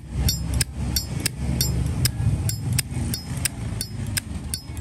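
Brass Zippo lighter lid flicked open and snapped shut over and over, a quick string of sharp metallic clicks with a bright ring, about three or four a second. The lid action on a re-soldered hinge sounds fairly good.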